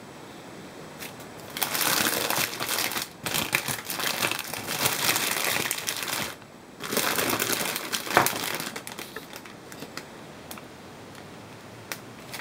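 Foil-wrapped chocolate eggs and their plastic bag crinkling as hands stir through them, in two long stretches with a short pause about six seconds in, then a few small rustles.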